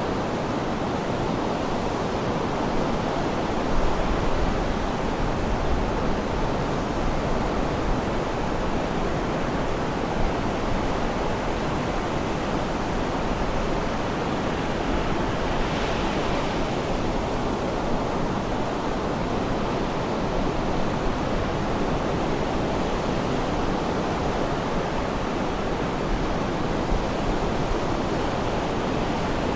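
Sea surf washing on the shore in a steady, unbroken rush, with a brief brighter hiss about halfway through.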